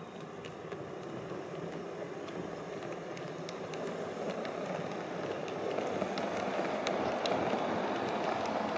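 Model train running on its track: the rumble of the wheels and motor, with scattered light clicks as the wheels pass over rail joints, growing steadily louder as it comes closer.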